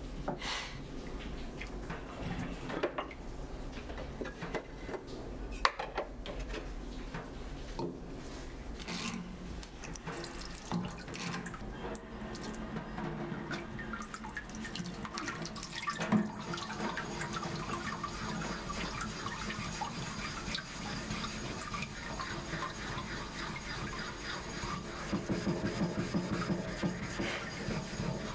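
Water poured and dripping onto a Japanese waterstone, followed by a steel blade being rubbed back and forth on the wet stone, with a run of quick sharpening strokes near the end.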